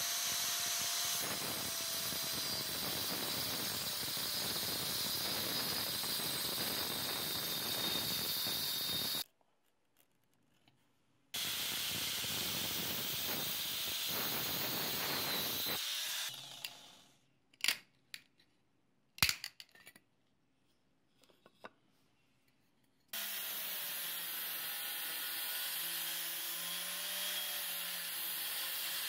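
Angle grinder with a cutting disc cutting into a wooden block, with a high whine, in two runs separated by a short silence. A few sharp knocks follow, then the grinder runs again fitted with a sanding disc, sanding along a wooden strip for the last several seconds.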